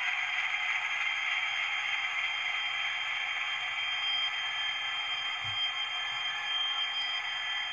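Hornby Class 66 model locomotive's TTS sound chip playing a diesel engine at idle through the model's small speaker: a steady hiss with a few faint steady tones and almost no bass.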